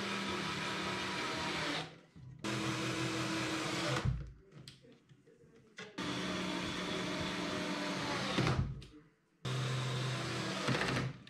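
Cordless drill/driver driving screws into a 6 mm plywood drawer bottom, its motor whining steadily in four runs of about two to three seconds each, with short pauses between screws.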